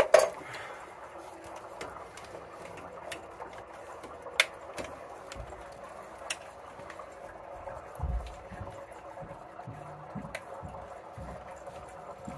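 Scattered sharp clicks and light metal taps from handling a flexible metal electrical conduit and its sheet-metal bracket on top of an electric water heater, the loudest click at the very start. A few low thuds come about eight seconds in, over a faint steady hum.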